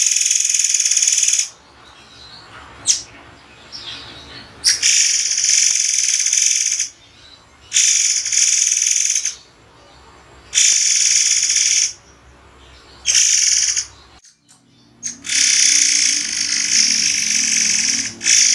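A songbird sold as 'murai air' singing sharp, harsh bursts, each about one to two seconds long, with pauses between them: the paused 'tembakan' (shot) style used as a tutor recording for training other songbirds.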